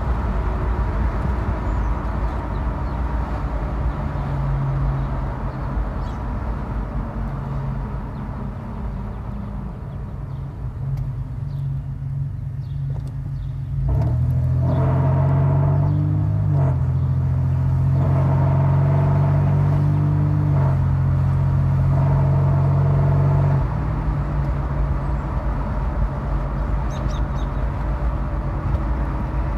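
2000 Toyota 4Runner running with an unusual low droning hum. The hum grows louder about halfway through and holds for roughly ten seconds, shifting pitch slightly in steps, then falls back.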